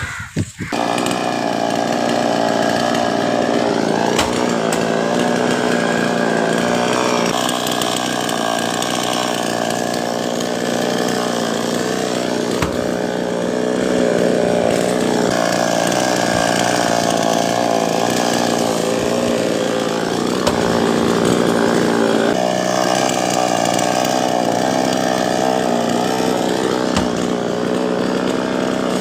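Chainsaw running continuously as it cuts through a coconut palm trunk, its engine pitch shifting slightly as the chain bites.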